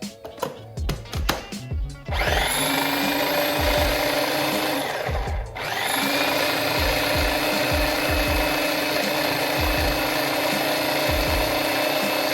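Small electric food chopper running in two bursts while chopping onions. It spins up about two seconds in, stops briefly near the middle, then starts again and runs steadily.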